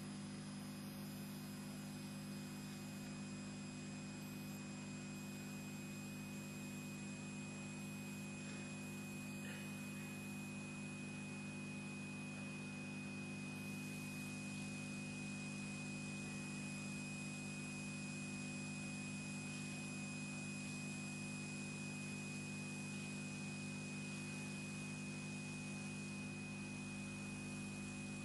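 Faint steady electrical hum with an even hiss and a thin high tone, from an open sound line carrying no voice.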